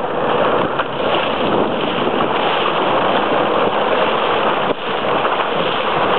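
Jet ski running across open water: a steady rush of engine and water noise.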